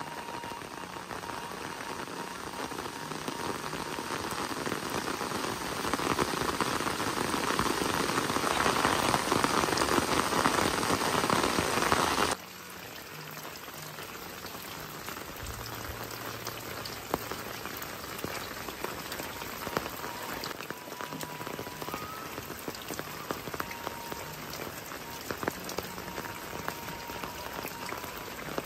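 Heavy rain falling steadily on a puddled yard and garden, growing louder over the first twelve seconds. It then drops abruptly to a quieter, steady rain with scattered drops splashing.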